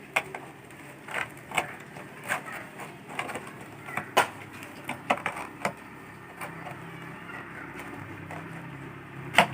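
Plastic bottle and folded cloth being handled: irregular clicks and crinkles as the cloth is pressed tightly into the cut-open bottle, with one sharper click near the end.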